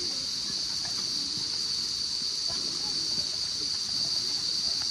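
Steady, high-pitched insect drone, unbroken, with faint voices underneath.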